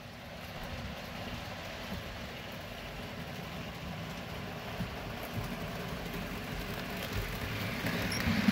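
Model steam locomotive and its freight train rolling along the track, a steady rumble of wheels and motor that grows louder as the train approaches and passes near the end.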